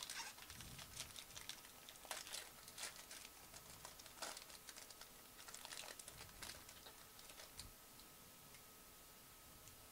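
Faint rustling and light clicking of trading cards and clear plastic card sleeves handled in nitrile gloves, in scattered short bursts that stop about eight seconds in.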